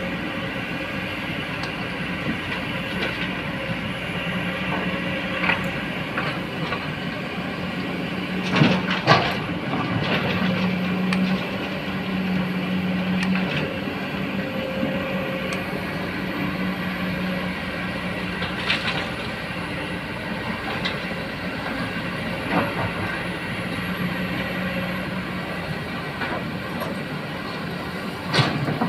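Hydraulic excavator's diesel engine running steadily under work, with scattered metallic clanks and knocks from the machine, the loudest pair about nine seconds in.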